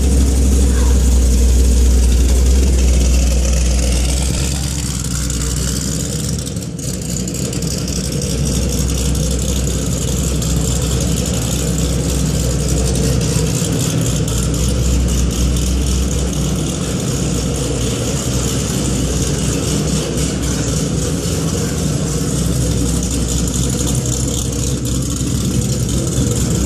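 Chevrolet Camaro 1LE with an aftermarket camshaft, its engine idling and creeping along at low speed with a steady low rumble, a little louder for the first few seconds.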